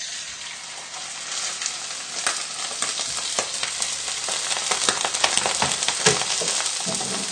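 Rainbow trout fillets frying skin side down in oil in a very hot frying pan: a dense sizzle full of small crackles, growing louder over the first couple of seconds and then holding steady.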